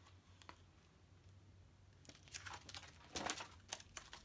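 Plastic-covered pages of a ring-bound flip chart rustling and crinkling as a page is turned, with a few soft clicks first and the crinkling loudest in the second half.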